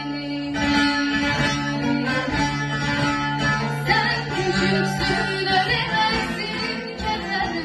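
A bağlama (saz) playing a melody while a girl sings a song into a microphone, both amplified through a PA.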